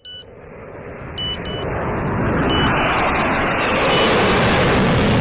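Jet aircraft roar swelling up over the first two or three seconds and then holding steady and loud. High electronic alarm beeps sound over it in quick pairs, about one pair every second and a half.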